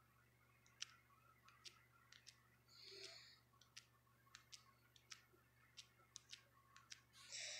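Faint, irregular taps of a fingertip on a phone touchscreen while typing on the on-screen keyboard, about two or three taps a second. Two short hissing sounds come about three seconds in and near the end.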